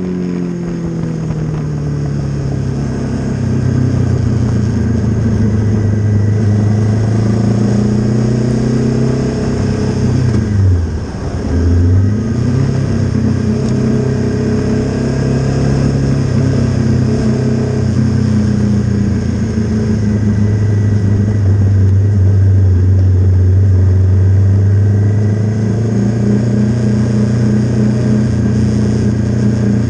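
Honda CB500 parallel-twin engine heard onboard, its note falling as the bike slows off the track, dropping sharply and picking up again about eleven seconds in, then running low and steady at slow pit-lane speed.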